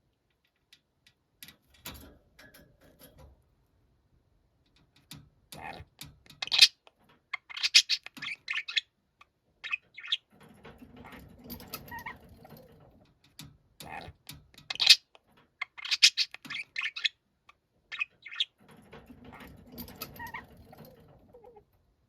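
Budgerigar giving loud, sharp calls, loudest in two bursts about six and fifteen seconds in. Softer low noise runs beneath the calls in the middle and near the end, and only a few faint clicks come before the calls.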